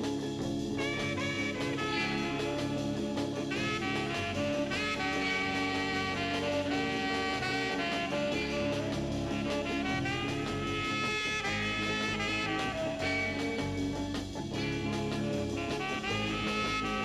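Upbeat instrumental swing music with horns.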